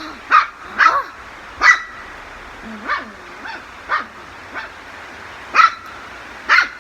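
A dog barking in short, sharp barks, about nine in all. The loudest come in the first two seconds and again near the end, with quieter ones in between.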